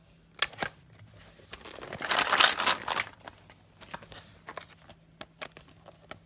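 Hard plastic toy parts clicking, then about a second of dense rattling as small plastic dinosaur figures are handled in and around a large plastic Tyrannosaurus rex toy that swallows them, followed by a few lighter clicks.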